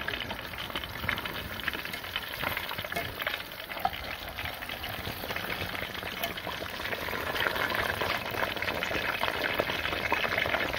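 Besan-battered fish deep-frying in hot oil in a metal kadhai: a dense, steady sizzling and crackling that grows somewhat louder in the second half.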